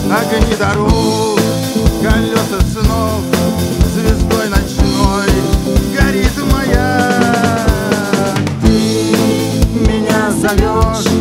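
A live band plays a song with a steady drum-kit beat, electric guitar and keyboards under a man's singing voice.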